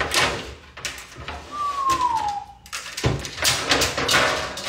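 Kitchen handling noises at a counter: rustling and clatter, with a thud at the start and another about three seconds in, and a short falling squeak in the middle, like a door or drawer hinge.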